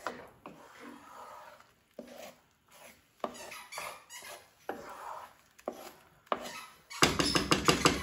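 Wooden spatula stirring and scraping a creamy scrambled-egg mixture in a nonstick frying pan, in short separate strokes. Near the end comes a rapid run of loud knocks.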